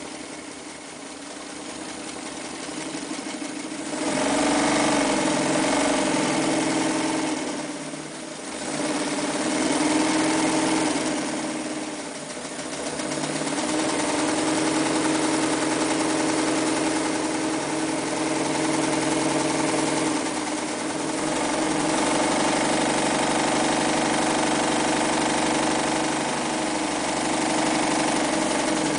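Early-1960s Mitsubishi MAZ4 sewing machine running as it stitches through fabric, its motor and needle mechanism running steadily. It is quieter at first, comes up to full speed about four seconds in, and eases off briefly a few times.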